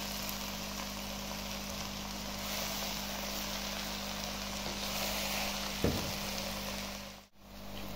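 Saag greens (mustard greens, dill and spinach) sizzling steadily in hot oil in a clay handi as they are stirred with a wooden spatula, over a constant low hum. A single knock about six seconds in, and the sound cuts out briefly near the end.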